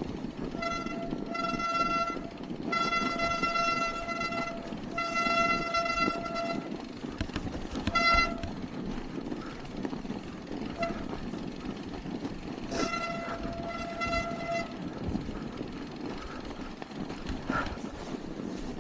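Mountain bike brakes squealing, one steady high note with overtones, in six pulls lasting from a fraction of a second to about two seconds, four of them in the first seven seconds and the last nearer the end. Under them runs the steady rumble of the tyres on a rough trail.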